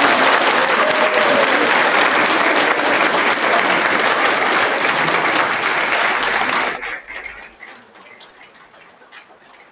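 Audience applauding steadily in a hall; the clapping stops fairly abruptly about seven seconds in, leaving a few scattered claps and clicks.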